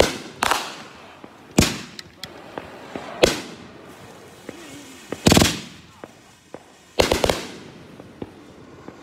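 Aerial fireworks bursting overhead: about five sharp bangs a second or two apart, each fading quickly. The later bursts come with rapid crackling reports.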